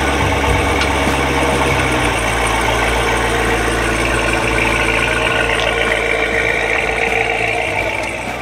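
Chevrolet C7 Corvette Stingray's 6.2-litre V8 running at low speed as the car pulls away, the sound easing slightly toward the end.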